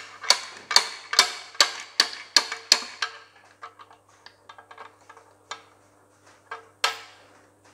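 Socket ratchet clicking about twice a second while tightening a bolt on a Massey Ferguson 135 gearbox's lay shaft front bearing support. After about three seconds the clicks turn slower and fainter, with one louder click near the end.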